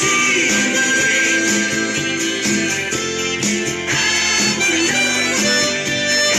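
Hohner chromatic harmonica playing a melody, holding long notes, over a backing track with guitar.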